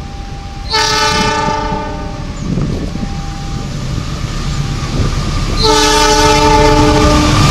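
Approaching diesel locomotive sounding its multi-tone air horn in two blasts, each about a second and a half long, one about a second in and one near the end. The locomotive's rumble grows louder as it nears.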